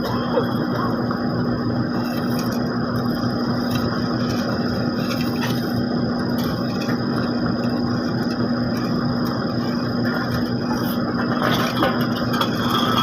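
Heavy diesel construction machinery running steadily at an asphalt paving site, with a constant low engine hum and a steady high whine, and a few faint knocks.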